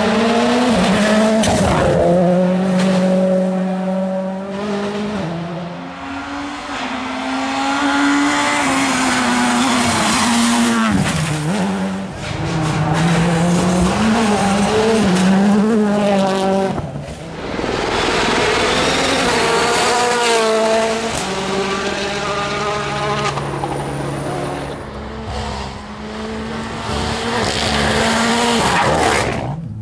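Rally cars' engines revving hard as they pass on a special stage. The pitch climbs and drops back again and again as the drivers shift gears and lift off for corners.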